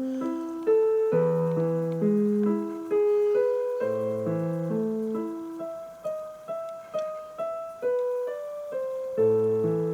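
Yamaha PSR-EW310 keyboard playing one of its built-in songs by itself through its own speakers, with no one at the keys. Piano-like notes that each die away: a melody over lower accompanying notes, thinning to a few separate notes about six to eight seconds in.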